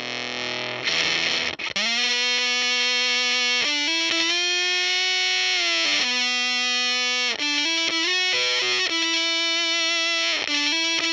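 Electric guitar played through a DIY Octavia-style octave fuzz pedal (Madbean Retrograde). A short scraped strum about a second in, then a run of long, heavily fuzzed single notes held out with slight bends.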